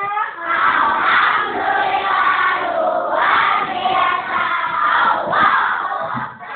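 A classroom of children chanting loudly together in unison, in three long phrases with short breaks between them.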